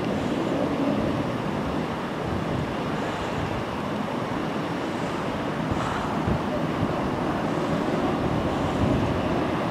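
Steady rushing roar of water gushing from a sheared fire hydrant, heard from a distance, with no distinct strikes or changes.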